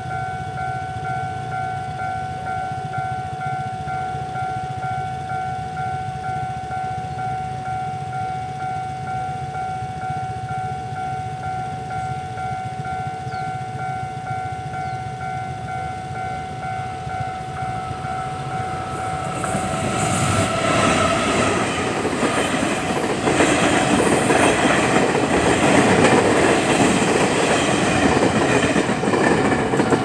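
Level-crossing warning bell ringing steadily. About twenty seconds in, an electric locomotive hauling Chu-Kuang passenger coaches comes through, a rising rumble with wheels clacking over the rails, loudest near the end and falling off just at the close.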